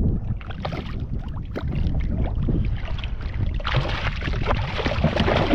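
Wind rumbling on the microphone over water and small knocks and clicks around a small fishing boat, with a louder rush of noise starting about two thirds of the way in.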